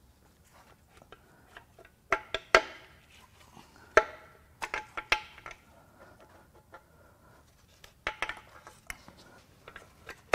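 Piston rings and piston parts dropping out of the cylinder bores of a torn-down Volkswagen 2.0 TSI EA888 block, clinking and ringing as metal strikes metal. There are three groups of clatters: about two seconds in, around four to five seconds in, and about eight seconds in.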